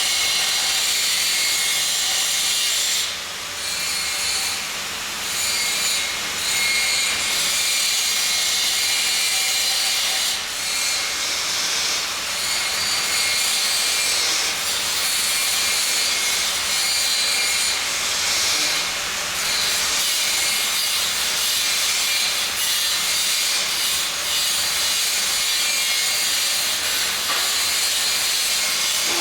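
Welding arc hissing steadily, with short breaks about three seconds in and again near ten seconds.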